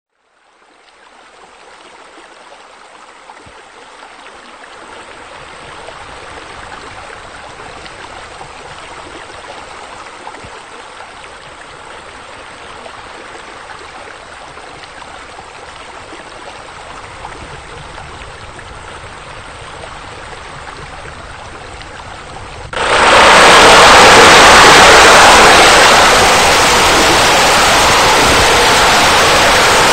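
Rendered sound effect of pool water running and splashing: a steady rush that fades in and slowly builds, then becomes abruptly much louder about 23 seconds in, a close rush of water falling from a spillway.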